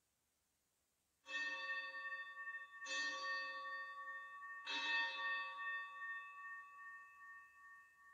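Altar bell struck three times, about a second and a half apart, each stroke ringing on and slowly fading; it marks the elevation of the consecrated chalice at Mass.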